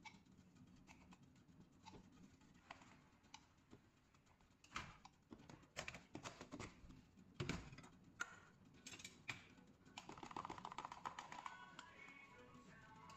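Light clicks and knocks of the plastic lid of a powder tub being handled and pressed shut, then about ten seconds in a long spoon stirring quickly in a glass, rapid light clinks against its sides.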